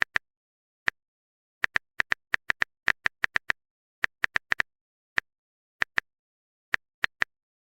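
Typing sound effect: short, identical clicks in irregular runs of up to about four a second, with pauses between runs.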